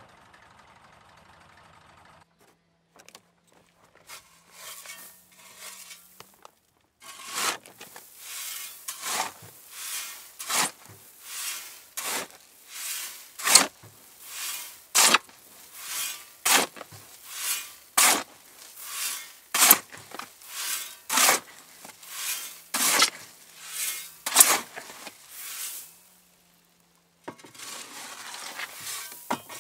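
Repeated scraping strokes, a little more than one a second, for most of the stretch, as of a tool scraping or working gritty material. An engine is running at the start and cuts off about two seconds in.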